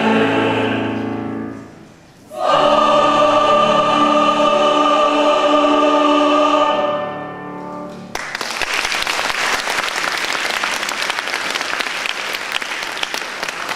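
Mixed choir singing the closing chords of a piece: a held chord dies away about two seconds in, and after a brief breath a final long chord is sustained and released around seven seconds in. Audience applause breaks out about eight seconds in and continues.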